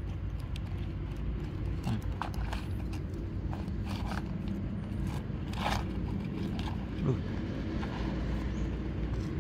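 A steady low motor hum, with scattered light clicks and scrapes and one brief louder scuff about six seconds in.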